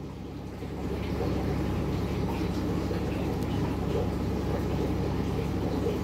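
Steady low, muffled rumble and hum of aquarium water and equipment picked up underwater in the tank, growing louder about a second in and then holding steady.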